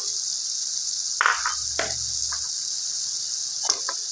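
Chana daal sizzling and simmering in a steel pot, a steady high hiss, with a few light knocks and clatters about a second in and again near the end as whole green chillies go in and a wooden spatula touches the pot.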